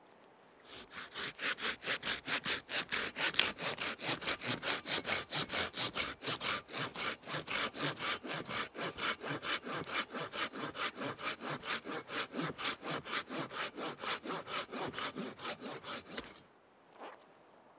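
Hand saw cutting through wood in quick, even back-and-forth strokes, about four a second, stopping near the end.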